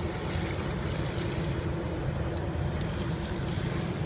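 Steady low rumble with a faint even hum from a large ship's engine on the river.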